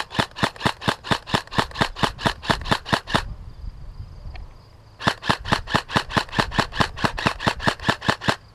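Airsoft rifle firing rapid shots, about six a second, in a long string that breaks off a few seconds in, then starts again after a short pause for another string.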